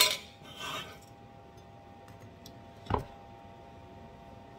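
Quiet handling sounds over a faint steady hum: a soft paper-towel rustle shortly after the start and a single sharp knock about three seconds in, as a hot bread-machine kneading paddle is handled and set down.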